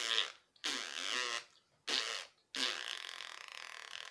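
Fart noises blown with the mouth as a raspberry: four rough blasts, the last one longest, drawn out for nearly two seconds near the end.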